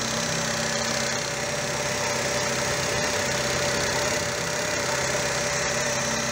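VW Polo petrol engine with single-point (throttle-body) injection idling steadily.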